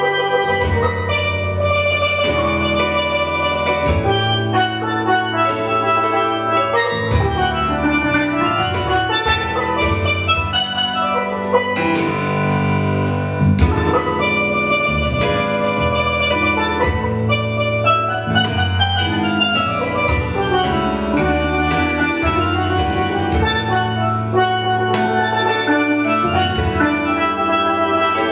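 Steel pan played with sticks: a quick, unbroken melody of struck, ringing metallic notes, with steady low tones underneath.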